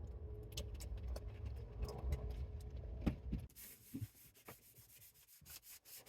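Abrasive rubbing on rusted sheet metal of a car trunk as the metal is prepped, in uneven strokes with scattered clicks. A low rumble runs under the first half, and the rubbing turns hissier and fainter in the last few seconds.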